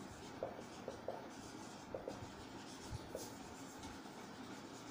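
Dry-erase marker writing on a whiteboard: faint scratching of the tip with a few short squeaks as letters are drawn.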